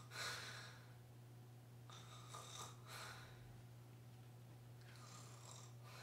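A woman fake snoring: three quiet, breathy snores about two seconds apart, over a faint steady low hum.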